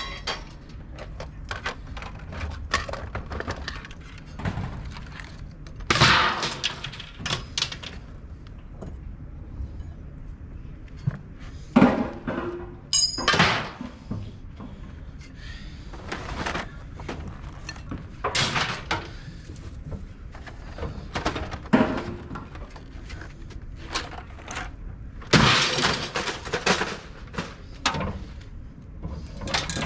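Irregular clanks and thuds of scrap being handled and tossed, scattered through the stretch, with a brief metallic ring about 13 seconds in.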